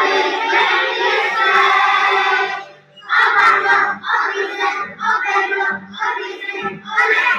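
A group of young children singing together in unison, with a short break about three seconds in and then shorter rhythmic phrases.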